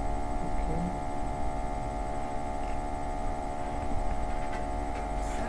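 A steady hum made of several fixed tones over a low drone, with no clear events in it; music starts right at the end.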